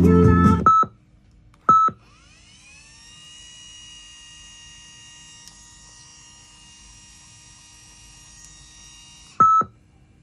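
Sony WMD-DT1 DAT Walkman: playback music cuts off with a short electronic beep, a second beep follows a second later, then a faint whine rises in pitch and holds steady for about seven seconds as the tape transport winds, ending with a third beep near the end.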